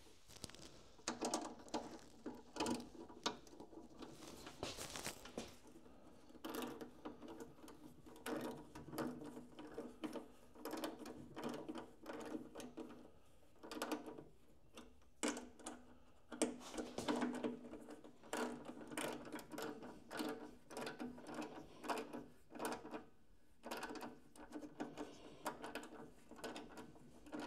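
Hands fitting a plastic mounting bracket and nut onto the back of a dash-mounted voltmeter: an irregular run of light clicks, taps and rubs of plastic and metal.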